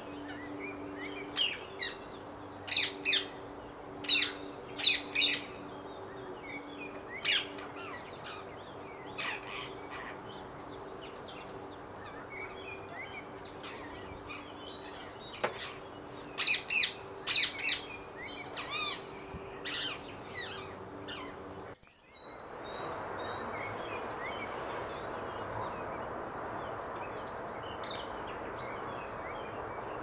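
Rose-ringed parakeet calling: short, shrill calls given in quick clusters. About two-thirds of the way through, the calls give way to a steady rushing background noise with only a few faint calls.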